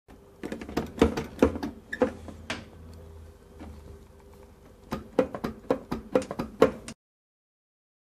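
Dishwasher door knocking and clacking against its frame as it is pushed to and worked, in two runs of sharp knocks, the second in the latter half; the broken latch lets the door fail to catch on its hook. A faint steady hum lies underneath.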